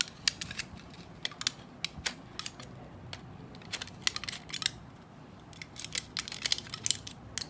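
Small packaging of a vape pod being handled and opened by hand: irregular sharp clicks and crinkles of cardboard and plastic, with a pause of quieter handling around the middle.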